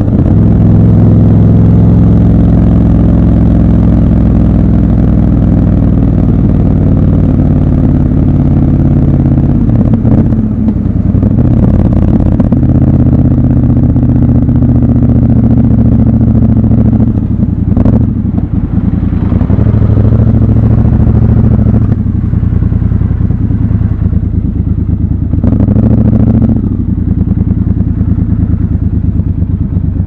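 Triumph Scrambler motorcycle engine running at low speed in slow traffic, recorded raw from the rider's position. Its note rises and falls several times with throttle and gear changes.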